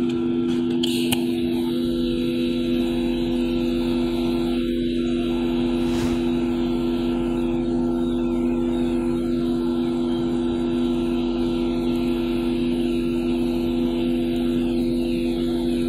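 TIG welding arc on a stainless-steel pipe turning on a welding rotator, with a steady electrical hum. The arc's steady buzz strikes about two seconds in and cuts off near the end.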